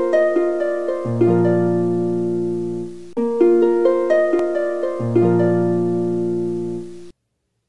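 Intro music of plucked notes. A short melodic phrase is played twice, each time over a held low note, and the music cuts off abruptly about half a second before the end.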